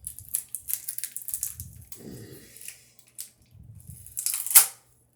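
Crackling and crunching as the iPhone 6S Plus battery is pried and bent out of its adhesive, loudest about four and a half seconds in.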